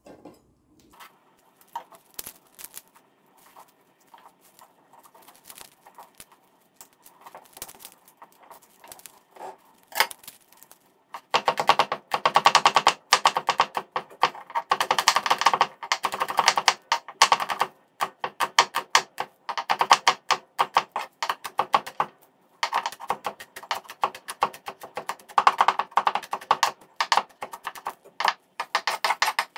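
Chef's knife chopping garlic cloves on a wooden cutting board. There are scattered taps at first, then from about eleven seconds in, fast runs of rapid strikes broken by short pauses.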